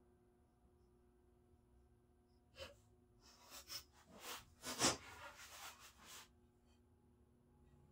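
Faint steady hum, then from about two and a half seconds in a handful of short knocks and scrapes as a steel rule and a hardwood board are picked up and set down on a wooden workbench.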